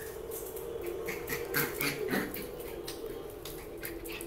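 Small dog's claws clicking and pattering irregularly on a wooden parquet floor as it runs about.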